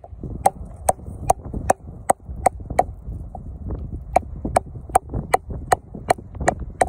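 A curved steel carving blade paring away the leftover centre stub on the foot of a freshly turned wooden bowl. It makes a regular series of crisp wooden cuts, about two or three a second, with low rumbling underneath.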